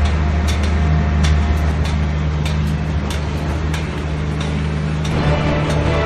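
Engine of a hydraulic static pile driver running steadily with a low hum, with scattered short clicks and knocks over it.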